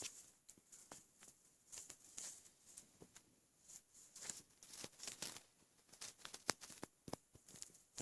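Faint, irregular gurgles, pops and crackles from a stomach bloated with a gallon of milk, as trapped air bubbles shift inside it.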